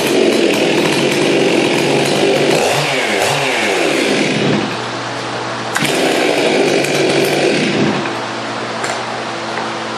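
Two-stroke chainsaw engine running, its pitch swooping up and down a few times as the throttle is worked, then settling to a steadier, quieter note near the end. There is a sharp click about halfway through.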